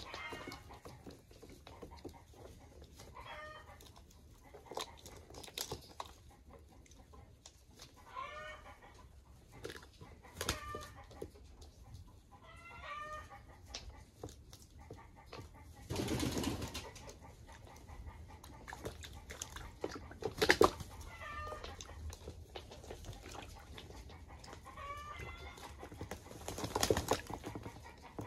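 English Modena pigeons bathing: noisy bursts of splashing and wing-flapping, the biggest about midway, and a few sharp knocks. Over it a bird repeats a short call of quick notes falling in pitch every few seconds.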